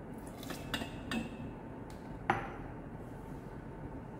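A few light clicks, then one sharp, ringing glass clink about two seconds in as the glass beaker knocks against the glass measuring cylinder.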